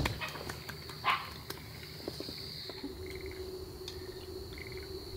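Outdoor ambience of insects trilling steadily, with a few short pulsed chirping calls and a low steady hum joining about halfway through. A single sharp hand clap at the very start.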